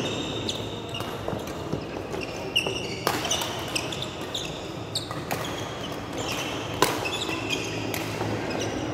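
Badminton rally: sharp smacks of rackets hitting the shuttlecock, the loudest about seven seconds in, mixed with short high squeaks of court shoes on the floor.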